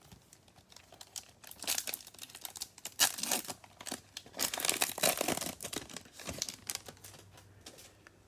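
Wrapper of a Bowman baseball card pack being torn open and crinkled by hand: a run of crackling and tearing that builds about a second and a half in, is loudest in the middle, and tails off near the end.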